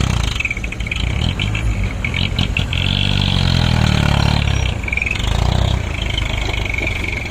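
Heavy diesel engine of an excavator or dump truck revving up and falling back several times, with a high squealing and scraping over it.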